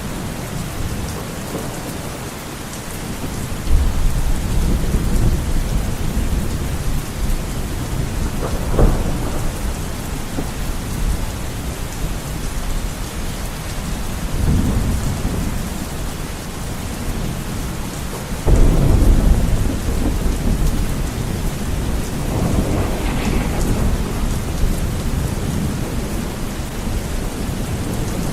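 Heavy rain beating steadily on a window, with several low rumbles of thunder rolling through; the loudest comes about eighteen seconds in.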